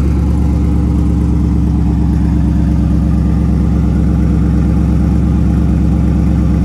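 Twin-turbo 5.0 Coyote V8 of an S550 Mustang idling steadily and evenly on its stock idle tune, with the ghost-cam lope switched off.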